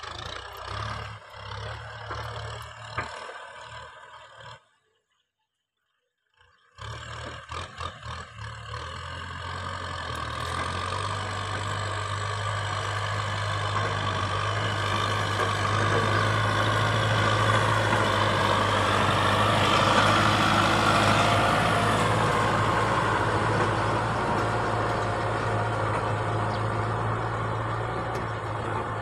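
Kubota M6040 tractor's four-cylinder diesel engine running steadily under load while pulling a rear rotary tiller through dry, cloddy soil, with a few knocks in the first seconds. The sound drops out completely for about two seconds near the start, then the engine grows louder as the tractor draws close and eases off a little as it moves away.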